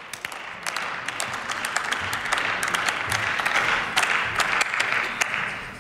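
Applause from seated members of parliament: a steady patter of many hands clapping that dies away near the end.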